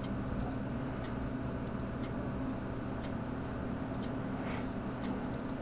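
Steady low rush of an oxy-acetylene micro welding torch flame heating a steel pipe joint, with faint ticks about once a second.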